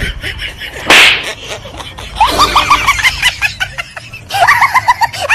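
A loud, sharp slap about a second in, as one man hits another. It is followed by two runs of quick, rising high-pitched squeals.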